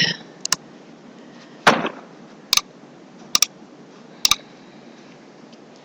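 A handful of sharp, isolated clicks from computer keys and a mouse, one of them a quick double, over a steady hiss from a faulty microphone.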